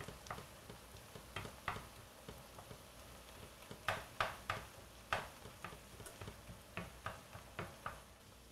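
Wooden spoon scraping and tapping against a nonstick skillet in irregular strokes as it breaks up and stirs ground beef and turkey browning with onions, over a light sizzle. The strokes are loudest about four to five seconds in.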